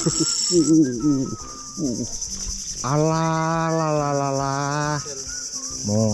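Steady high-pitched drone of insects from the mangrove forest. A loud held pitched tone lasting about two seconds comes in about three seconds in, with short voice-like sounds before it.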